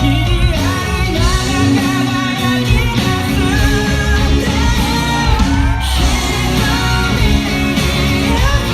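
Pop-rock song: a sung lead vocal over band backing with steady bass and guitar.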